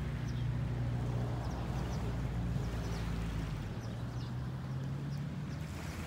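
A steady low engine drone, its deepest part dropping away a little past halfway, with faint scattered chirps of small birds.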